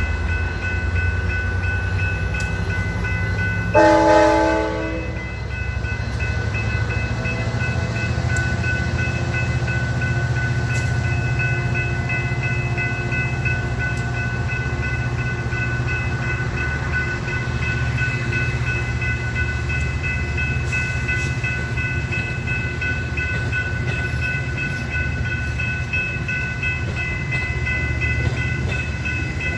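Metra diesel commuter train running past with a steady low engine and wheel rumble, a single short, loud horn blast about four seconds in, and a grade-crossing bell ringing continuously.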